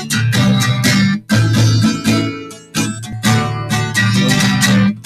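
Intro music: strummed acoustic guitar chords in a steady rhythm.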